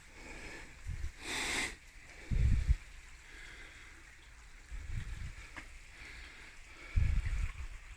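Wind buffeting the microphone of a handheld phone in short low rumbling gusts, about four times, with a brief hiss about a second and a half in.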